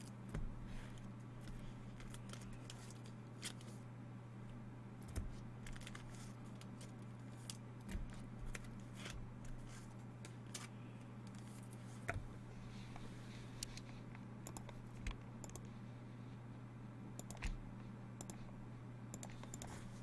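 Scattered light clicks and taps at irregular intervals, over a steady low electrical hum.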